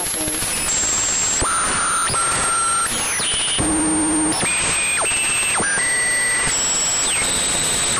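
Synthesized sci-fi radio interference, an odd radio-tuning sound: constant hissing static with whistling tones that jump abruptly from pitch to pitch every half-second to a second, some gliding up or down, and a short low warbling tone about halfway through.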